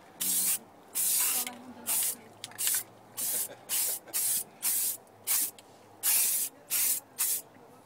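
Aerosol spray can spraying paint in short repeated bursts, about a dozen over eight seconds, each a quick hiss of a fraction of a second with a pause between: touch-up painting of a car trunk.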